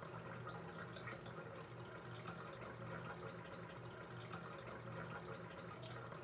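Faint steady water-like background ambience: an even hiss over a low hum, with scattered small drip-like ticks.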